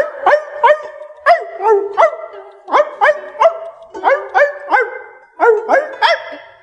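A rapid run of dog barks, about three a second, over music with held notes.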